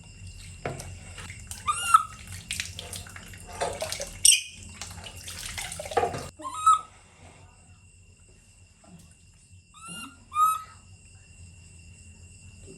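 Water splashing and sloshing during a bath, which stops a little past halfway, with four short high rising-and-falling squeaks scattered through, over a steady background of insects trilling.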